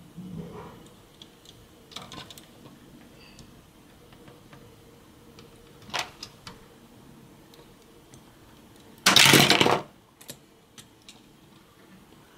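Plastic Lego bricks and figures being handled, with small clicks and knocks. About nine seconds in there is one loud clatter lasting under a second, as a wall panel of the Lego police station is knocked out.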